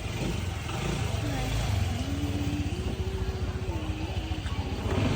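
Street traffic with motor vehicle engines running steadily, and a faint voice wavering in the background.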